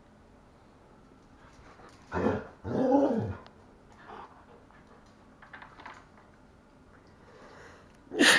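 Border collies play-fighting: two loud dog vocalizations about two seconds in, the second longer and rising then falling in pitch, then a few faint clicks and another loud, sharp bark near the end.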